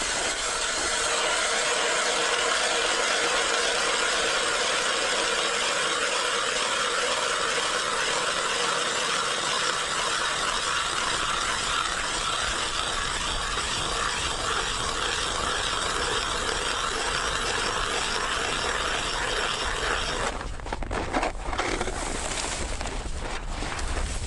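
Hand-crank ice auger drilling through lake ice: a steady grinding scrape of the blades cutting into the ice. About 20 seconds in the grinding breaks off into a few knocks and scrapes as the auger comes out of the hole.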